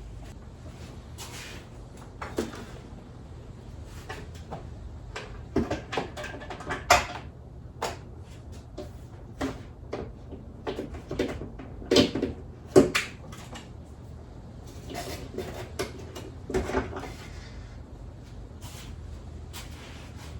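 Tools and fork parts being handled during motorcycle front-fork reassembly: scattered knocks and clinks at an uneven pace, with the loudest few around the middle.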